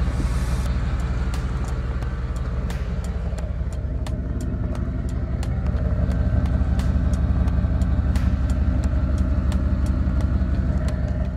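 Chevrolet K1500 pickup's engine running steadily, a deep rumble that grows a little louder about halfway through, with a scatter of sharp clicks over it.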